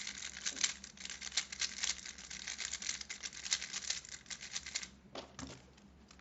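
Plastic Rubik's Speedcube being turned quickly by hand: a dense run of clicking and clacking as the layers turn, stopping about five seconds in.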